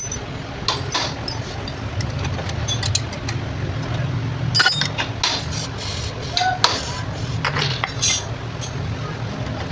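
Irregular metallic clinks and short knocks, scattered through, over a steady low hum.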